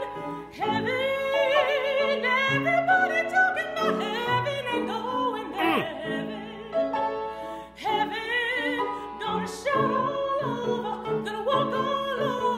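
A woman singing a spiritual in classical art-song style with wide vibrato, accompanied by piano. About six seconds in, the voice makes a short downward slide.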